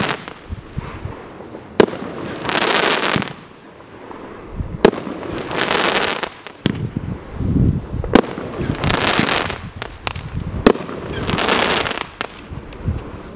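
Consumer fireworks cake (Cake P) firing four single shots about three seconds apart. Each launch thump is followed by a second-long crackling burst of the stars.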